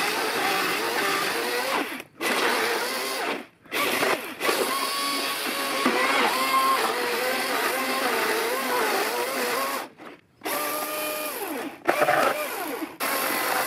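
Battery-powered Milwaukee M18 chainsaw cutting through a log, played back sped up, so the motor's whine is high and wavers up and down as the load changes. The sound drops out briefly three times as the saw stops between cuts.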